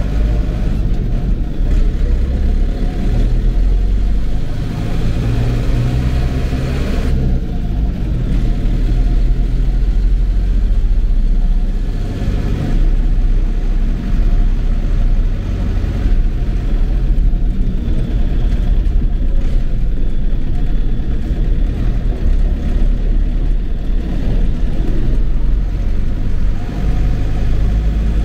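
Diesel engine of a Mercedes-Benz MB-trac tractor running steadily, its note shifting a little in pitch a few times.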